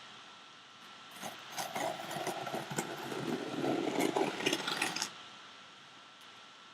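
Scraping and crinkling of packaging with small clicks as a sealed box is worked open, lasting about four seconds and stopping near five seconds in.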